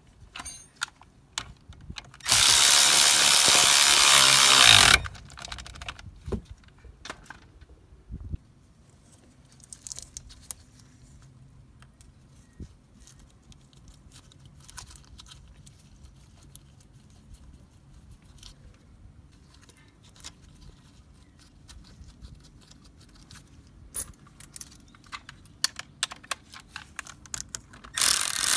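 Handheld power tool spinning a bolt in through a socket, running steadily for about three seconds, then light clicks and knocks of tools being handled. The tool starts up again just before the end.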